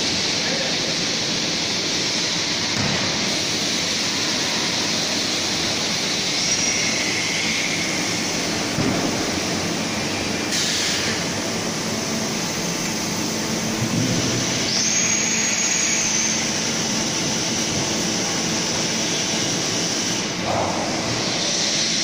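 Steady factory-floor machinery noise, a constant loud hiss and hum from running production equipment. A brief hiss comes about ten seconds in, and a thin high whistle near the middle.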